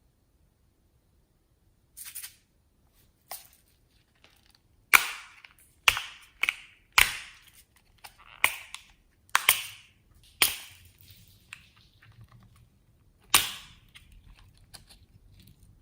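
Slime being pressed and folded, letting out about ten sharp pops at irregular intervals.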